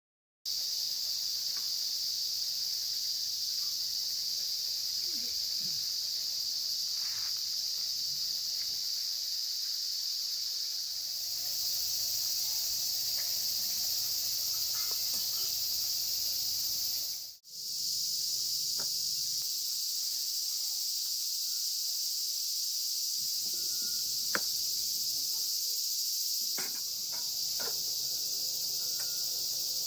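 Dense, steady, high-pitched chorus of crickets and other insects, with a few faint small clicks and knocks. The chorus cuts out for an instant a little past halfway, then resumes.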